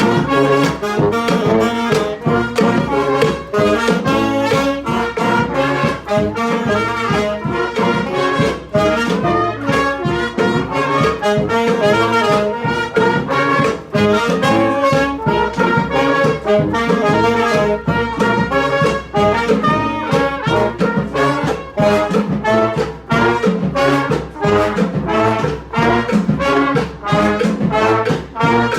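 Brass street band of trombones and trumpets playing a tune together over a steady drumbeat.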